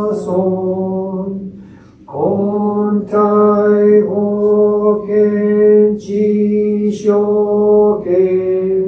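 A man chanting a Shin Buddhist sutra in a steady monotone, the syllables held on one pitch. He pauses briefly for breath about a second and a half in, then carries on.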